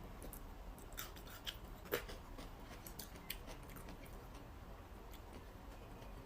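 Faint eating sounds: a person chewing, with a few light clicks and crunches scattered through, the clearest about one and two seconds in.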